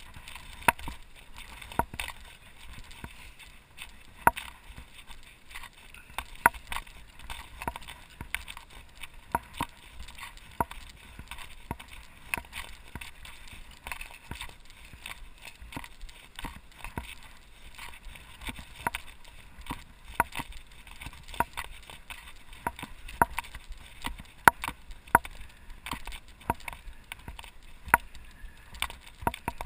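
Mountain bike rattling and clattering over rough, bumpy dirt, with many sharp irregular knocks, several a second, over a steady low rumble.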